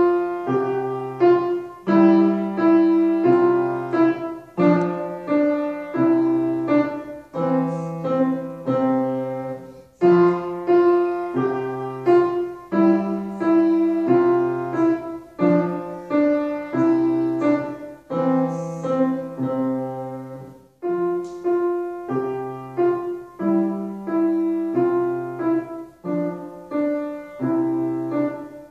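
Grand piano played solo, a piece going in phrases of struck notes, with short breaks between phrases about ten seconds in and again about twenty-one seconds in.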